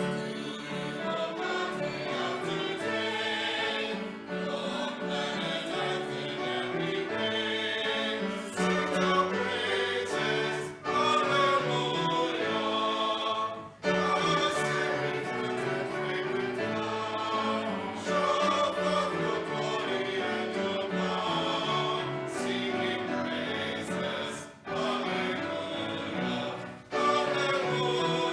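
Choral music: a choir singing in phrases, with a few brief breaks between them.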